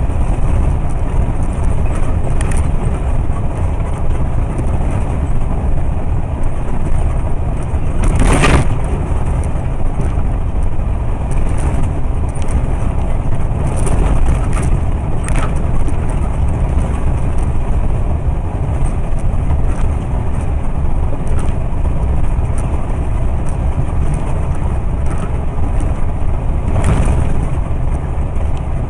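Steady rumble of a vehicle driving on the road, heard from inside the cabin, mostly low road and engine noise. A few short knocks break through, the loudest about eight seconds in and a weaker one near the end.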